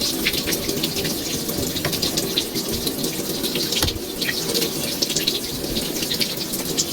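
Water running from a tap and splashing, with a steady rush and many small irregular splashes.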